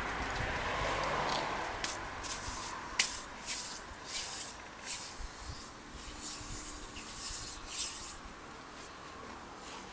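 Irregular short bursts of rustling, about ten of them, with one sharper click about three seconds in.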